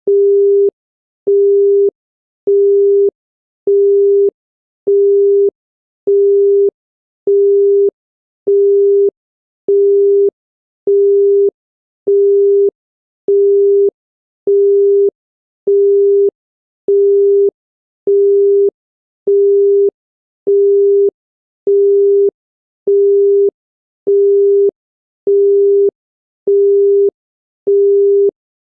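Telephone busy tone of the Indian 'busy B' type: a single steady 400 Hz tone beeping on and off evenly, 0.6 s on and 0.6 s off, signalling that the called line is engaged.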